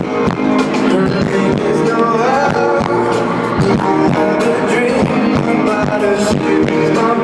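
A live pop-rock band playing a song, with sung lead vocals over guitar.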